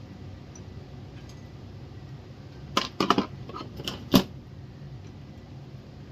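A quick run of sharp clicks and clatters of small hard parts being handled, about three seconds in, ending in one louder knock, over a steady low hum.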